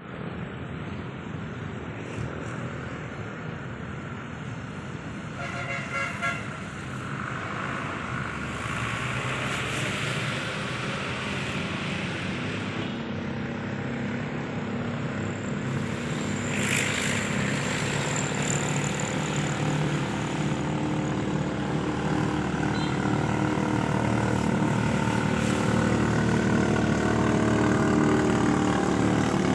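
A pumpboat's inboard engine running steadily and growing gradually louder, with a brief higher tone about six seconds in.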